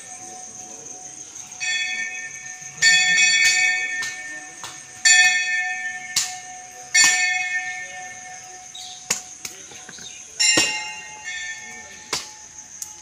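Hand-rung temple bells struck about five times at uneven intervals, each strike ringing on and fading. A bell of a slightly different pitch sounds near the end, along with a few sharp metallic clicks.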